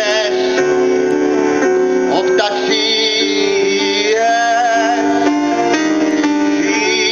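Live acoustic music: a plucked guitar with singing, the notes held and wavering.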